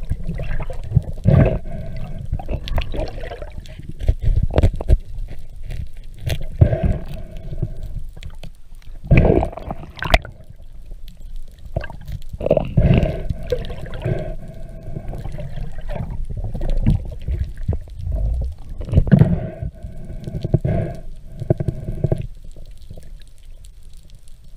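Muffled underwater sound picked up by a submerged camera: irregular rushes, bumps and rumbles of moving water and handling.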